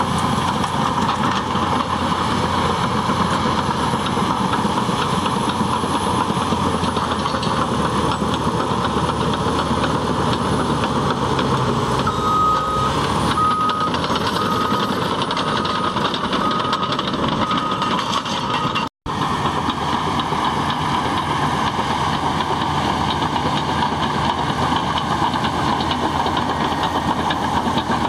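Cat D6T bulldozer's diesel engine running steadily under work. About halfway through, a reverse alarm sounds about eight short, evenly spaced beeps at one pitch. Just after, the sound drops out completely for a moment, then the engine continues.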